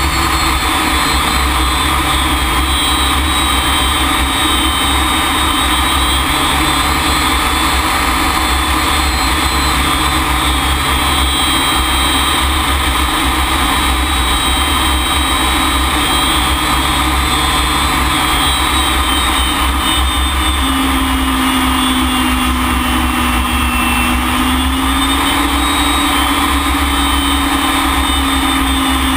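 Cockpit noise of a BAC Strikemaster's single Rolls-Royce Viper turbojet: a loud, steady rush with a high turbine whine that dips slightly in pitch about three-quarters of the way through. A low steady hum joins about two-thirds in.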